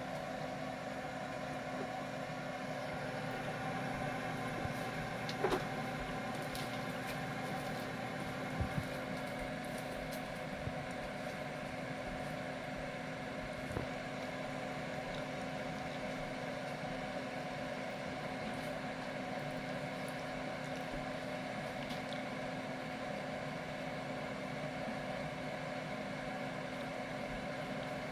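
An oven running with a steady hum while the dish bakes, with a few faint clicks.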